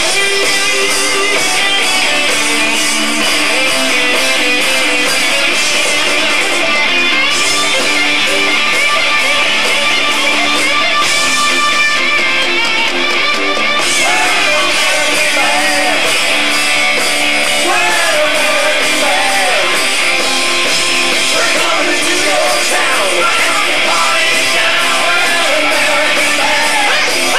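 A rock band playing live, with electric guitars and drums, and little bass. Wavering lead lines come in over the band from about halfway through.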